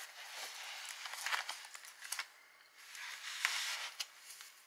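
Paper pages of a handmade junk journal being turned and handled: paper rustling in a few swells, with light clicks and ticks between them.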